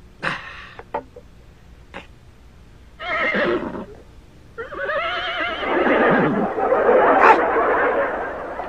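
Wavering, whinny-like vocal sounds: a short one about three seconds in, then a longer, louder one over a dense noisy bed.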